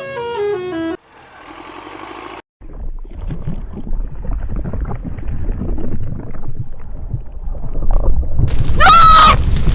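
Cartoon sound effects: a quick jingle of stepped tones running down and back up, then a rumbling noise that builds, and near the end a loud horn-like tone that wavers and falls.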